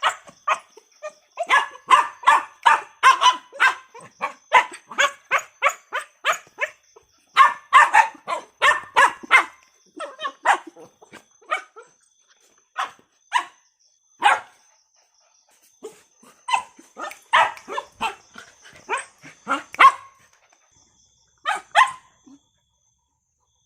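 A dog barking in quick runs of sharp barks, several a second, with short pauses between runs; the barking thins out and stops shortly before the end.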